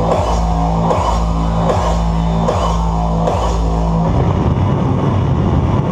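Loud hardstyle dance music from a live DJ set: a distorted kick drum pounds a steady beat under a held bass tone. About four seconds in, the kick pattern drops out and a denser, noisier passage takes over.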